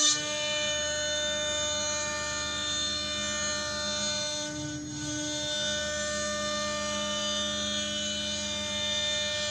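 CNC cutting machine running, a steady whine of several held tones that shifts briefly about five seconds in.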